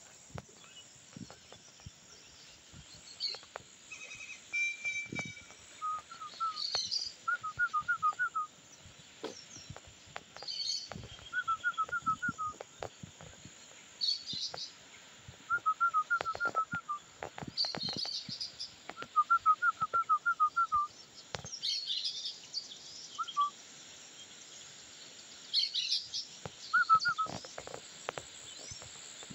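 Wild birds calling: one repeats short runs of quick, even chirps every second or two, and another gives higher calls every few seconds. Soft footstep knocks sound underneath.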